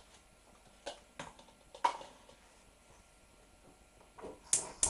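A few scattered short clicks and knocks from handling at the hob: the wire chip basket being set down, then a gas hob control knob being turned in a quick cluster of clicks near the end.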